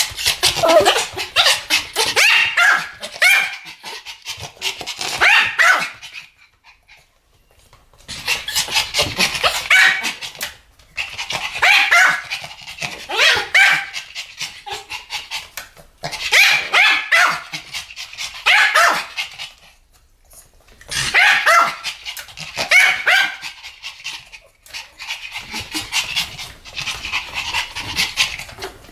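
Two Pomeranians barking together in rapid volleys of yappy barks, several seconds at a time, with short pauses between the volleys.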